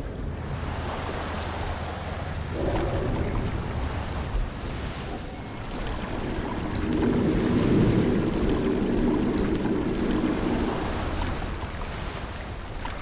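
Halloween sound-effect ambience: a rushing, rumbling noise that swells and fades, with a low droning tone rising out of it about seven seconds in and dying away near eleven seconds.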